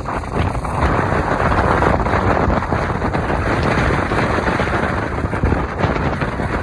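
Strong, gusty wind buffeting the microphone ahead of an approaching typhoon, a loud rushing noise that swells about a second in and stays up.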